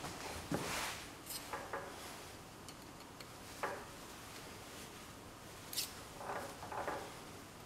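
Gloved hand handling a steel line boring bar in a drill press, making scattered light metal clicks and rubbing sounds with the drill's motor off.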